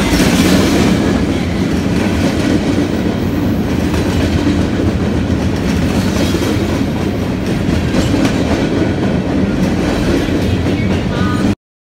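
Freight cars rolling past at close range, their steel wheels clacking over the rail joints in a steady, loud rumble. The sound cuts off suddenly near the end.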